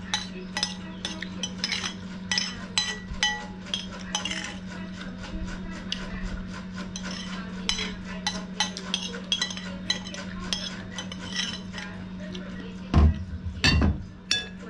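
A metal spoon clinking and scraping against a ceramic plate while eating, in many short irregular clinks, some with a brief ring. Two heavier thumps come about 13 seconds in, as the plate is set down on the table. A steady low hum runs underneath.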